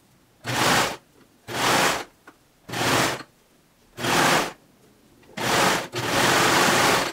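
Baby Lock Imagine serger running in short stop-start bursts while it overlocks a stretched knit cuff onto a sleeve: five runs of about half a second each, then a longer run of about a second near the end.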